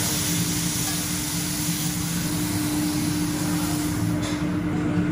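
Beef cubes sizzling on a hot teppanyaki griddle as they are seared, over a steady low hum. The sizzle drops away about four seconds in, leaving the hum.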